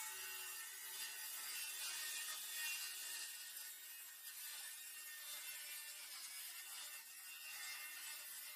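Handheld circular saw running under load, ripping a long straight cut through a large sheet board at a fairly even level.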